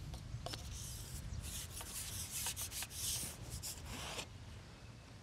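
Scratchy rubbing and scraping in a series of short, irregular bursts that stop about four seconds in: handling noise as an angler works his tackle at the seatbox and gets his pole out.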